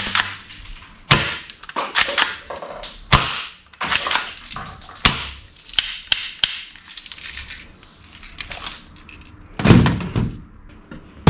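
Hard plastic toy guns handled and set down on a wooden tabletop: a string of sharp, irregular clacks and knocks, with a heavier thud near the end as the black gatling-style toy gun is laid down.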